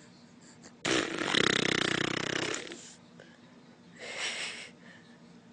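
A loud, raspy, rapidly fluttering fart sound starts suddenly about a second in and lasts nearly two seconds. A shorter, fainter sound follows about four seconds in.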